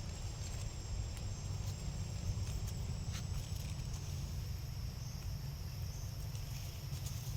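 Outdoor ambience: a steady high hiss with a thin whine in it over a constant low rumble, with a few faint clicks.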